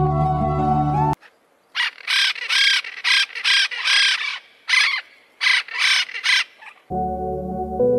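Yellow-eared parrots giving a run of about eleven loud squawks in quick groups, each call arching up and down in pitch. Soft background music breaks off about a second in and comes back near the end.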